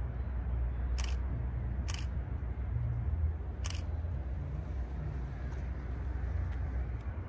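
Three short sharp clicks, the first two a second apart and the third nearly two seconds later, over a steady low rumble.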